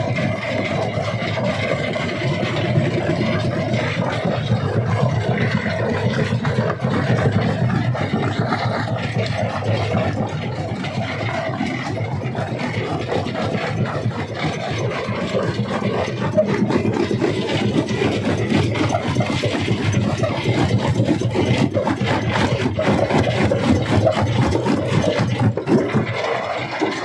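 Big stone crusher running under load, its engine and machinery going steadily while rock is broken, with a dense run of cracks and knocks from the stone throughout.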